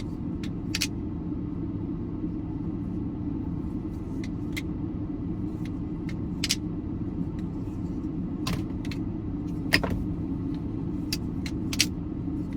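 Plastic 3D-printed balisong (Flip Forge Edit Lite) being flipped, its handles giving scattered sharp clicks at irregular moments, over a steady low rumble inside a car.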